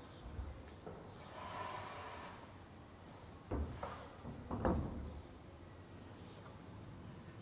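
A few sharp knocks or bangs over faint outdoor ambience, three of them in the second half, the last the loudest.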